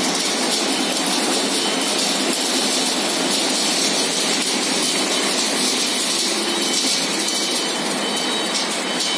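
Fertilizer packing machine running, with its inclined belt conveyor dropping granular fertilizer into the weigh hopper: a steady, even mechanical rush with no distinct beat.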